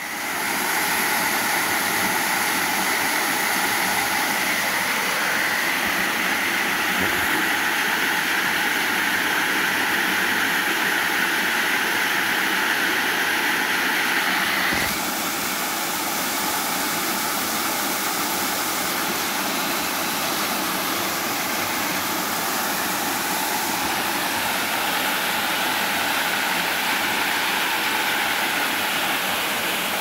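Steady rush of a rocky mountain stream, water spilling over small cascades between boulders. It changes slightly and becomes a little quieter about halfway through.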